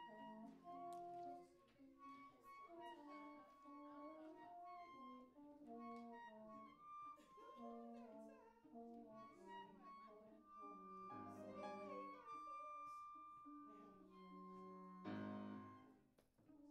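A small string ensemble playing a classical piece, several parts moving together in held notes. A fuller chord sounds about eleven seconds in, and a loud chord near the end fades away.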